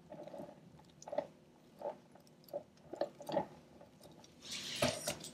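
Plastic cake scraper smoothing buttercream across the top of a cake: a series of short, soft wet scrapes and squishes, with a louder, longer scrape near the end.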